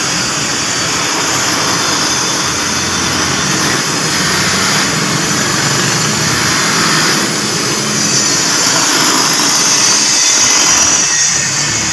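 Bench grinder motor running steadily, a continuous hum with a strong hiss over it.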